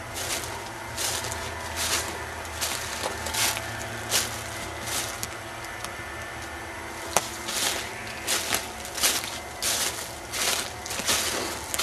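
Footsteps crunching on the ground, a crunch about every three-quarters of a second with a short pause midway, and a single sharp click about seven seconds in.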